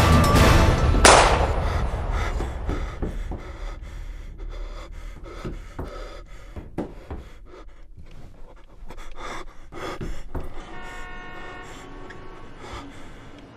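A person panting hard, with irregular footsteps on a stairway that grow fainter. A loud burst of noise comes about a second in.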